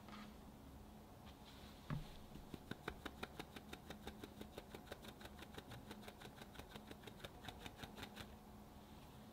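A fine mesh sieve being tapped quickly and evenly over a glass bowl to shake cocoa powder through, about six light taps a second for some six seconds. It follows a single knock about two seconds in.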